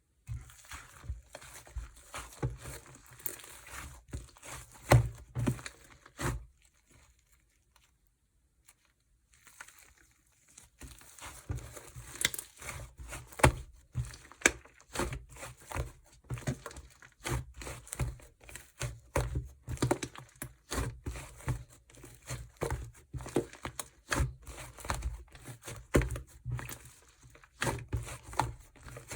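Hands squishing and stretching clay-mixed slime: a dense run of sticky crinkling clicks and pops, stopping for about three seconds about a quarter of the way in.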